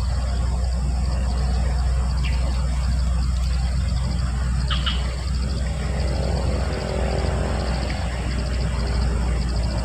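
A steady low rumble, loud and even throughout, with faint rapid high pulsing above it and a couple of short high chirps.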